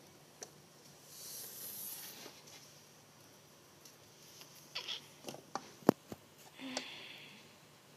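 Faint handling noises of small plastic toy figures being moved and set down, with a cluster of light taps and one sharp click about six seconds in.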